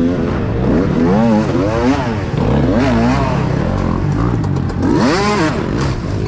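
Dirt bike engine revving up and down over and over, its pitch rising and falling with each burst of throttle. The biggest rev comes about five seconds in.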